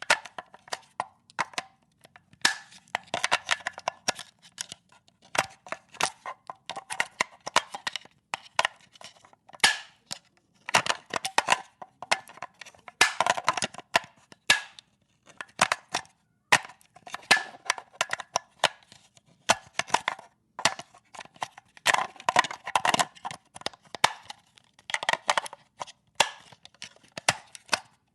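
AA batteries being put into and taken out of a plastic battery compartment: a string of sharp plastic clicks, snaps and rattles, irregular and in clusters, with the batteries knocking against the casing and contacts.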